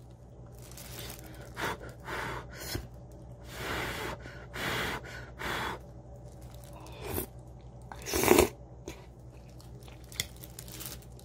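Someone eating spicy curry udon: a series of short, irregular chewing and mouth noises, the loudest about eight seconds in.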